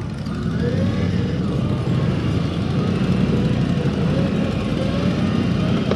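CFMOTO CForce 1000 ATV's V-twin engine running steadily at low speed on a dirt trail, its pitch rising slightly a couple of times.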